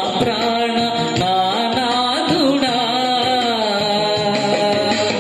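A man singing a Telugu Christian devotional song into a microphone, his melody bending and gliding, over a steady drum beat.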